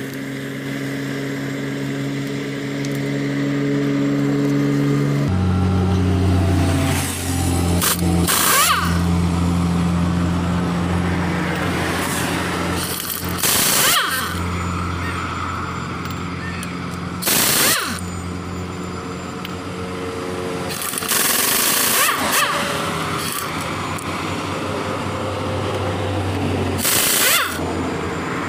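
Pneumatic impact wrench on a truck's wheel nuts, hammering in about five short bursts, over the steady hum of an idling engine.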